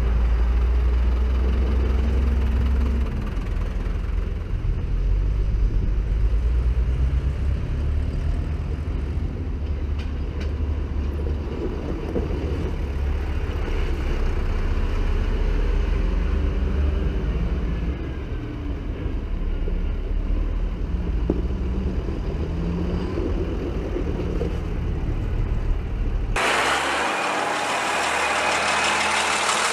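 Diesel tractors driving past one after another, their engines running with a continuous low rumble and shifting pitch as each goes by. About 26 s in, a cut to a nearby tractor engine running steadily.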